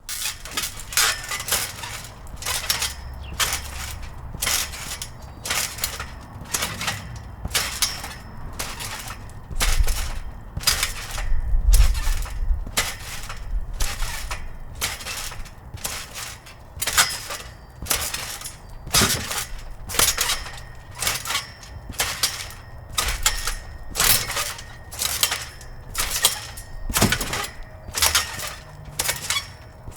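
Metal coil springs and mat of a 12-foot trampoline under an adult jumping steadily: a regular run of springy metallic clangs and creaks with each landing and rebound, between one and two a second. A faint low rumble of background traffic sits underneath.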